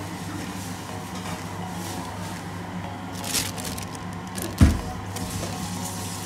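A steady low hum throughout, with a short crinkle of the plastic bag holding the fish about three seconds in and a dull thump a second later, the loudest sound.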